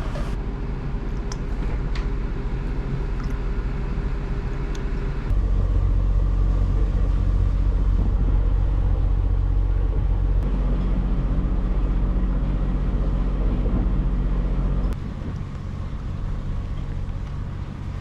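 A motor runs with a steady low rumble. The sound jumps louder about five seconds in and drops back near the end, as if separate takes were cut together.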